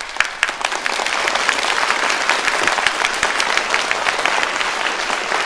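Theatre audience applauding, many hands clapping together, swelling over the first second and then holding steady.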